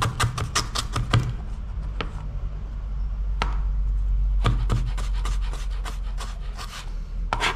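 Large kitchen knife chopping ginger on a plastic cutting board: a quick run of strikes in the first second, then single chops and short bursts of chopping spaced through the rest.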